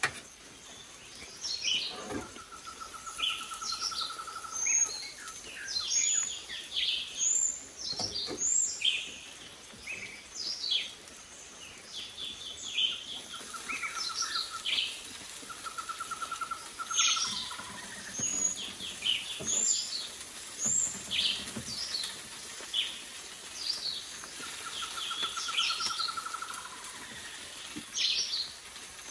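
Several forest birds calling and chirping, short high notes over and over. A lower, evenly pulsed trill comes in four times, each about a second and a half long. There are a couple of light knocks.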